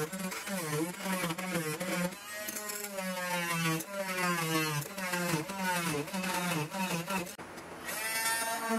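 Oscillating multi-tool cutting fiberglass, a buzzing whine that rises and falls in pitch as the blade bites into the laminate and eases off.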